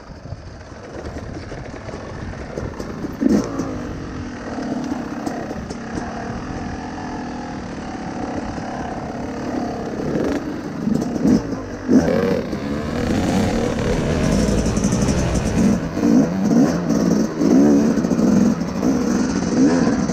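Two-stroke dirt bike engine revving up and down on throttle, heard from a helmet camera on the rider, over a rough trail. It gets louder and busier with repeated throttle blips in the second half.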